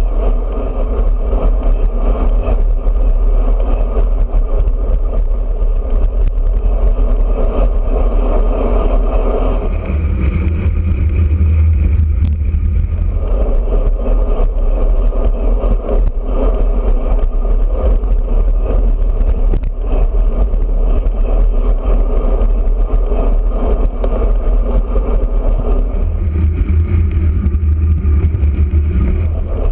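Steady loud wind rumble on a bicycle-mounted camera's microphone while riding a road bike. The rumble deepens and grows heavier for a few seconds about ten seconds in and again near the end.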